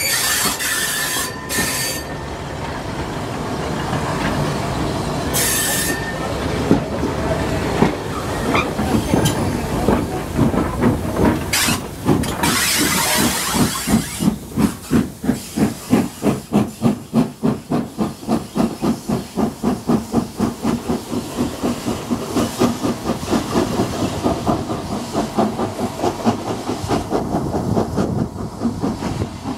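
Heritage steam train running past another train: brief high wheel squeals in the first seconds, a loud hiss of steam about twelve seconds in as a steam locomotive passes close by, then a steady rhythmic beat, about two to three a second, that slowly fades.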